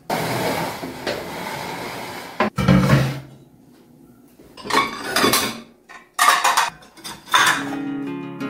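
Ceramic plates clinking and clattering in several short bursts as they are handled and stacked, after a couple of sharp knocks about two and a half seconds in.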